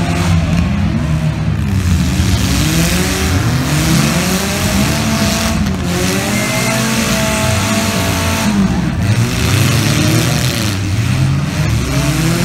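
Several demolition-derby cars' engines revving hard at once, their pitches rising and falling every second or two and overlapping as the cars push and ram in the arena.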